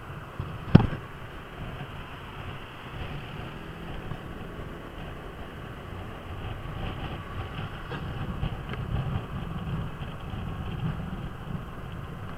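Kymco Downtown 300i scooter, single-cylinder four-stroke, riding at speed in traffic: steady engine and road noise, with a single sharp knock about a second in.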